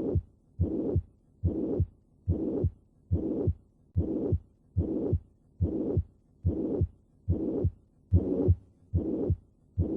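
Heart sounds through a stethoscope with the pansystolic murmur of mitral regurgitation. The beat comes a little over once a second. In each beat the first heart sound is followed by a steady blowing murmur that lasts all the way to the second heart sound.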